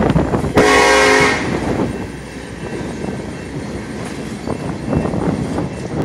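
Freight train of hopper cars rolling past, with gusty wind buffeting the phone's microphone. About half a second in comes a short train horn blast, a single chord lasting under a second.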